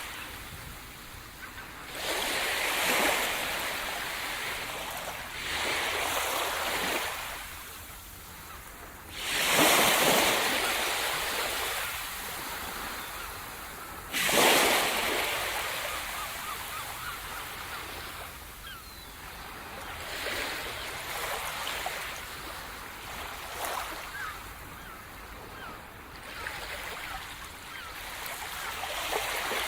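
Sea surf breaking on a shore: waves crash in surges, the loudest about ten and fourteen seconds in, followed by softer, broken washing of water.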